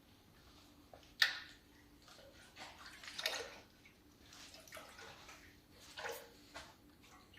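Automatic transmission fluid trickling and dripping into a drain pan, with a sharp clink about a second in.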